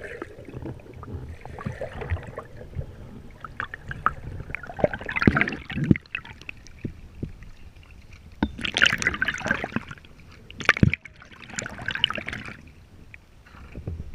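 Canoe paddle strokes in lake water, close by: gurgling and sloshing at the hull, with a series of splashy strokes a few seconds apart, the louder ones in the second half.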